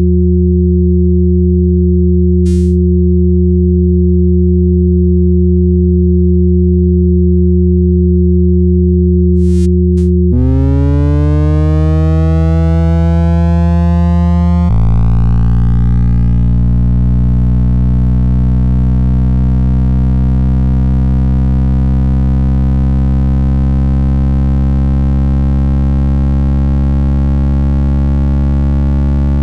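Computer-synthesised sine tones generated from drawn circles, each circle's size setting its pitch. Several steady low pure tones sound together, with a thin high whistle that cuts off with a click about two seconds in. About ten seconds in, a cluster of tones glides upward and the sound grows buzzier, and at about fifteen seconds it thickens into a dense, low, many-toned drone.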